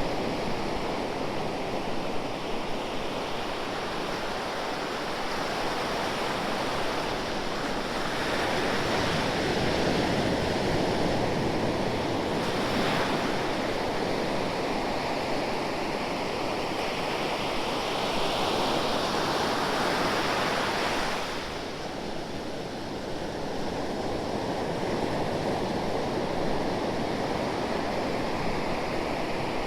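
Ocean surf: waves breaking and washing in a continuous rush of water, growing louder through the middle and falling back suddenly about two-thirds of the way through.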